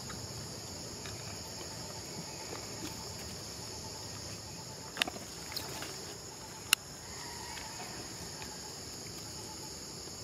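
Steady high-pitched drone of insects chirring, with two sharp clicks near the middle, about a second and a half apart.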